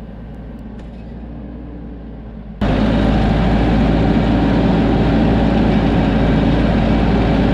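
TYM 574 compact tractor's diesel engine running steadily while pulling a hay rake through the field. It is fainter at first, then abruptly much louder and closer, as heard from the driver's seat, about two and a half seconds in.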